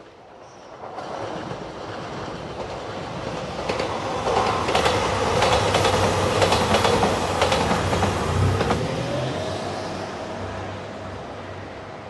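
JR Shikoku 2700 series diesel express train, three cars, passing close by. Its wheels clatter over the rail joints in a dense run of clicks at the loudest part. The sound then fades as the train goes away.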